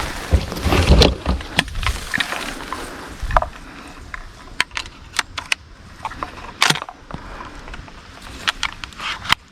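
Scattered clicks, knocks and rustling, the handling noise of a hunter moving and working his gear close to the microphone. It is thickest and loudest in the first two seconds, then comes as separate sharp ticks.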